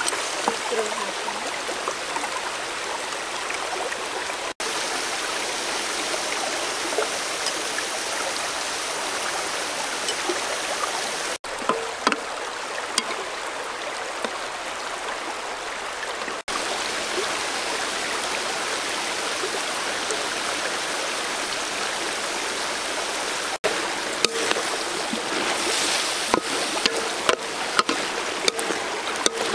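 Steady rush of a shallow river flowing over stones, with scattered clicks and taps of a wooden spatula stirring shrimp and vegetables in a metal wok, thickest near the end.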